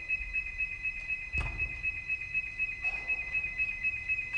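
Electronic alarm beeping: two high tones pulsing rapidly together without a break, with a single thump about a second and a half in.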